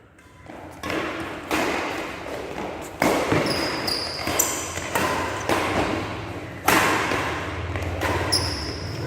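Badminton rackets striking a nylon shuttlecock in a rally: sharp hits at irregular gaps of one to a few seconds, each followed by a short ring-out, with brief high squeaks between some of them.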